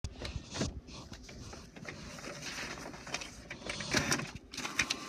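Inkjet all-in-one printer printing a page: irregular clicks, clunks and whirs from the print carriage and paper feed.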